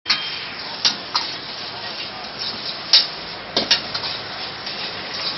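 Food sizzling in a wok over a gas flame, with a steady hiss, as a metal ladle clanks sharply against the wok about five times while the cook stirs and tosses it.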